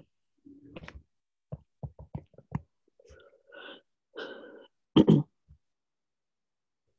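Scattered small clicks and short rustling noises coming over video-call microphones, with one loud short burst about five seconds in.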